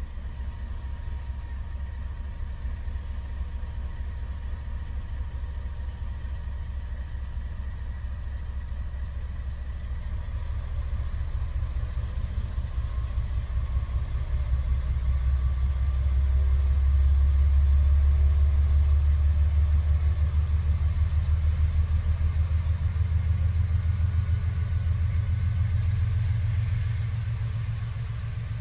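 Diesel locomotive engine running with a deep, pulsing rumble as it slowly hauls a freight train past. The rumble grows louder about halfway through and eases off near the end.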